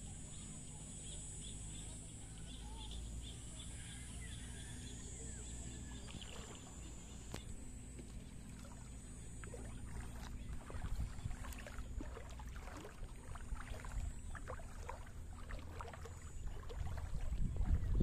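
Wind buffeting the phone's microphone as a low rumble, gusting stronger about two-thirds of the way in and again at the end. Over it there is a faint steady high hiss, and in the second half scattered small crackling clicks.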